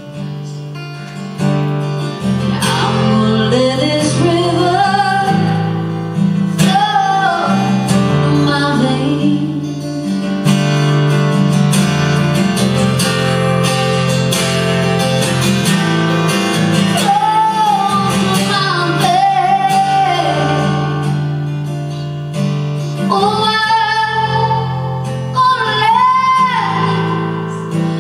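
Acoustic guitar strummed while a woman sings long, held notes without clear words, live music.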